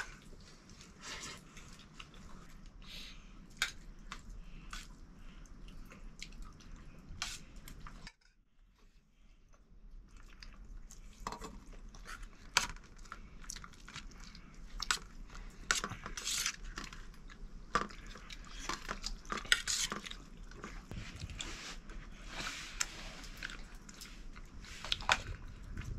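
Scattered clinks and knocks of metal dishes and utensils, with a short break about eight seconds in.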